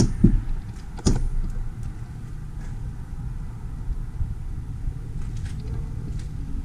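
Mercedes-Benz Sprinter 313 CDI van's diesel engine idling steadily. Two sharp knocks land in the first second or so.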